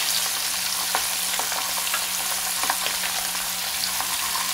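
Sardines frying in hot oil in a pan: a steady sizzle with scattered crackles and pops.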